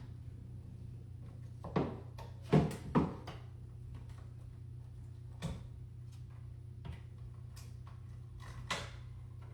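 A few short knocks and clunks of objects being handled, the loudest two close together a little before the midpoint, over a steady low hum.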